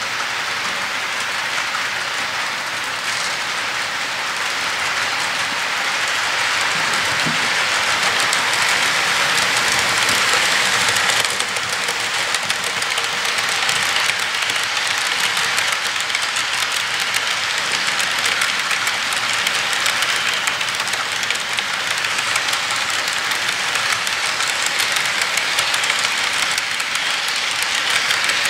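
HO scale model freight train rolling past close by: a steady rattle and rumble of the cars' wheels running on the track, growing louder over the first several seconds as the cars come level, then easing slightly.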